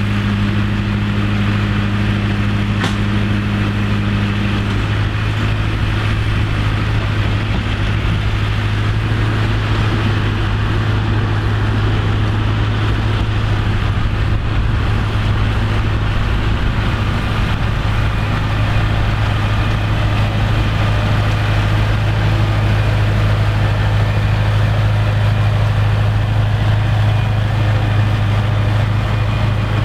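Massey Ferguson tractor engine running at steady revs with a strong low hum; a higher hum drops out about five seconds in.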